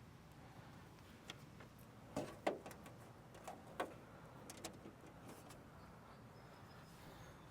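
Scattered light clicks and short rustles of plastic cable ties being fastened around car wiring, the loudest about two and a half seconds in.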